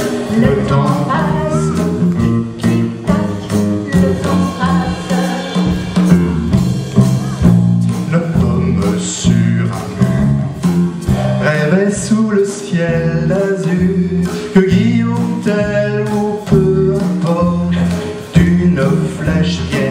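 Song: a man singing into a microphone over instrumental accompaniment with a steady, repeating bass line.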